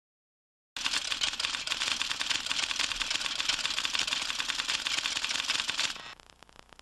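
Typewriter sound effect: a fast, continuous clatter of key strikes that starts just under a second in and stops about a second before the end.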